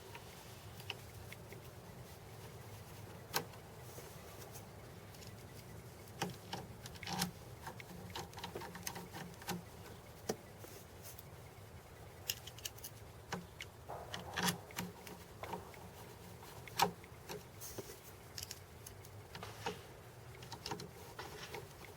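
Scattered light clicks, taps and rattles of small hard parts being handled, over a faint steady low hum.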